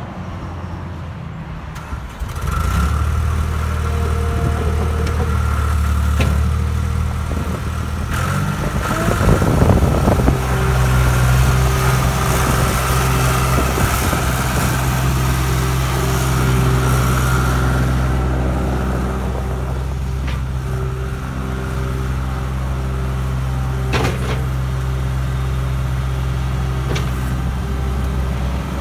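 John Deere 240 skid steer's diesel engine running steadily. It gets louder about two and a half seconds in, then about ten seconds in the throttle is raised to a higher, steady engine speed. A few sharp clicks or knocks are heard.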